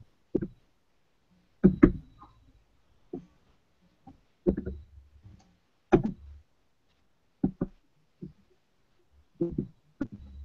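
Irregular short knocks and clicks, roughly one a second, some with a dull low thud, heard through a video-call microphone that cuts to silence between them.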